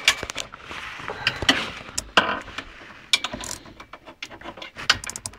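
Socket ratchet clicking in short irregular runs, with metal tools clinking and scraping, as bolts on an ATV winch are worked loose.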